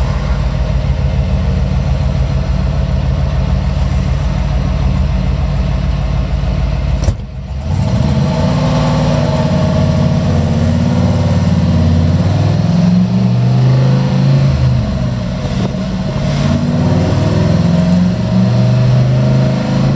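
1958 Chevrolet Cameo pickup's engine heard from inside the cab, running steadily at idle. After a brief drop about seven seconds in, it pulls away, rising and falling in pitch several times as it accelerates and shifts gears.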